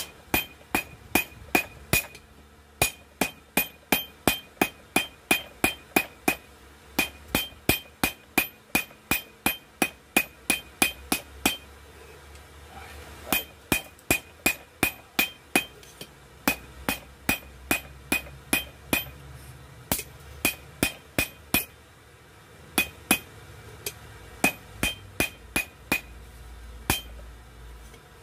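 Hand hammer blows on hot coil-spring steel over an anvil as a knife blank is drawn out, about three blows a second, each with a short metallic ring. The runs of blows are broken by brief pauses.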